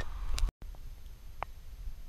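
Outdoor ambience: low, uneven wind rumble on the microphone, broken off by a brief total dropout about half a second in. There is one short high chirp near the middle and a few faint ticks.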